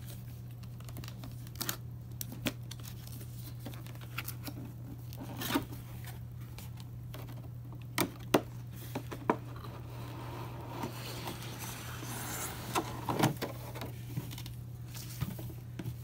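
Cardboard box and clear plastic packaging being handled as a model's plastic tray is slid out: scattered taps and clicks, with a stretch of crinkling and rustling plastic, over a steady low hum.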